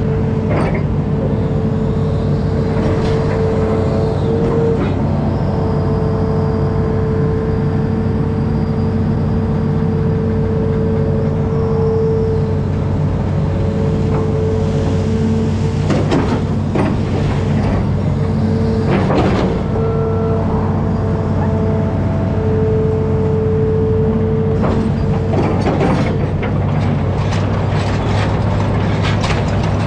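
Hitachi Zaxis amphibious excavator's diesel engine running under load, with a steady high whine that breaks off now and then. A few sharp metallic knocks and creaks, a couple of them in the middle and a cluster near the end.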